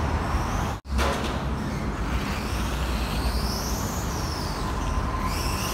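Electric RC monster truck driving on tiles, its motor whining in a high pitch that rises and falls as it speeds up and slows down, over a steady low rumble.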